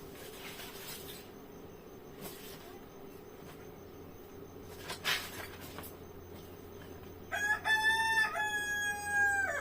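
A rooster crowing once, one long call of about two seconds near the end that drops in pitch as it ends. Before it there are only a faint steady hum and a couple of light clicks.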